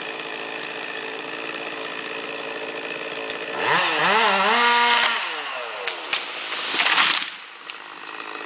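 Chainsaw idling steadily, then revved up about three and a half seconds in, held at high speed for over a second and let fall back to idle. A short loud rushing noise follows near the end.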